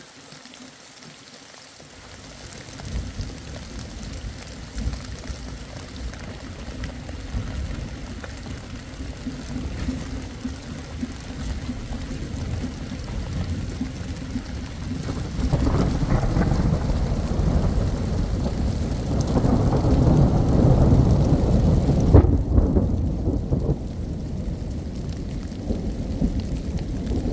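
Rainstorm: rain with a deep rumble that builds from about two seconds in and swells twice, loudest around twenty seconds in.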